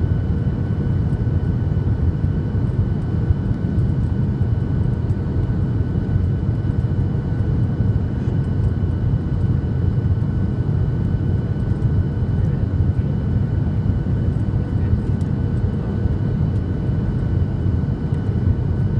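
Steady low rumble of jet engines and rushing air inside an airliner's cabin on final approach, with two faint steady whining tones above it.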